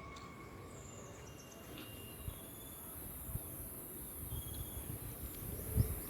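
Insects buzzing in a steady high-pitched drone that sets in about half a second in, with a few short bird chirps and some low thumps, the loudest near the end.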